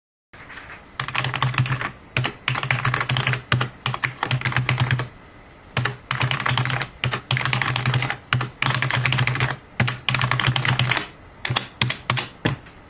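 Keys typed very rapidly in bursts of a second or two with short pauses between them, like numbers being entered by touch. A low hum sounds along with each burst.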